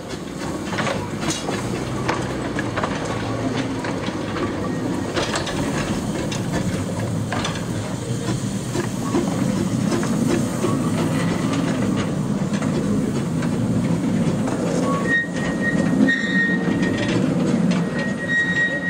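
Small narrow-gauge steam locomotive hauling passenger carriages slowly past: a steady rumble with sharp clicks of wheels over rail joints, and a high wheel squeal in the last few seconds.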